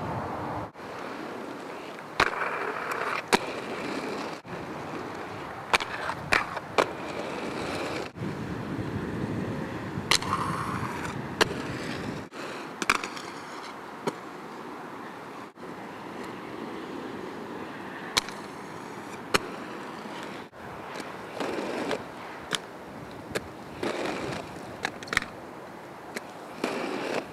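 Skateboard wheels rolling over rough asphalt, with sharp cracks from the board popping and landing about a dozen times. The sound breaks off and changes abruptly several times where separate takes are cut together.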